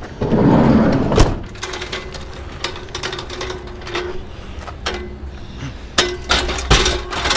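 A rustling swell ending in a sharp knock about a second in, then a string of separate sharp knocks and clunks over a low steady hum.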